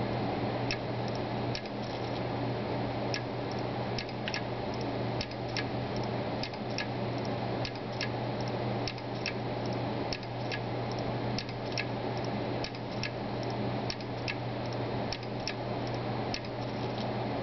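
Seagate Barracuda 1 TB hard drive clicking irregularly, about two to three clicks a second, over a steady low hum. The owner finds the drive loud and thinks this does not sound normal for a brand-new drive.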